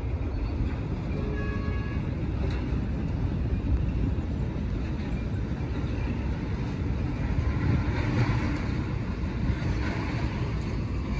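Steady low outdoor rumble of wind on the microphone mixed with distant road traffic, with a few faint tones near the start.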